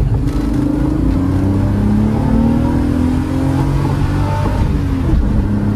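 BMW E30 325i's straight-six engine accelerating hard, heard from inside the cabin: the engine note rises, drops at an upshift a little under two seconds in, then climbs again through the next gear, with another change near the end.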